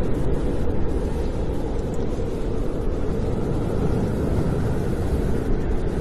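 Snowstorm wind blowing as a steady low rumble, with no distinct whistle or gusts.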